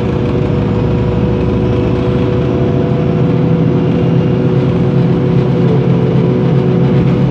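LPG-powered MAN NL 273 T3 city bus running: a steady low engine drone with a few steady higher tones over it, getting slightly louder in the second half.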